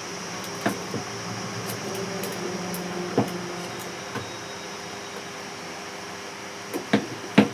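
Scattered sharp knocks and taps, about six, with two louder ones near the end, over a steady background hum.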